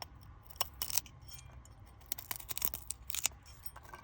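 Irregular crisp clicks and crackles in two short clusters, the brittle scaly skin of a salak (snake fruit) being cracked and peeled by hand.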